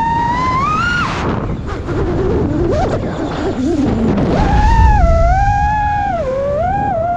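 FPV racing-drone motors and propellers whining, the pitch following the throttle: it climbs to a peak about a second in, breaks into a couple of seconds of rough rumbling noise, then returns lower and steps up and down.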